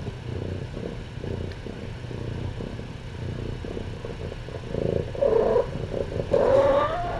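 Adult cat purring steadily, close up, with two short meows near the end, the second rising in pitch.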